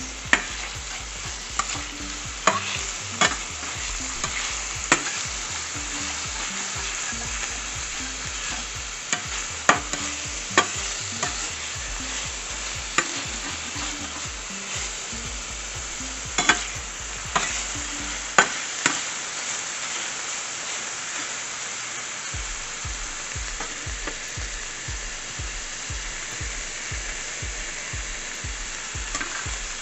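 Chicken strips sizzling in a stainless steel frying pan, with a spatula knocking and scraping against the pan every second or two. For about the last third there are few knocks and the steady sizzle is left on its own.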